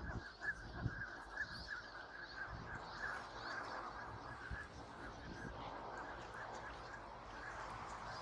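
A large flock of waterfowl calling, many short calls overlapping into a steady chatter. A few low thumps come in the first second.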